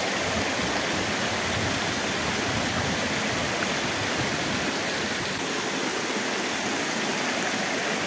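Waterfall water pouring over a rock lip and crashing into the pool below: a steady rushing noise that does not change.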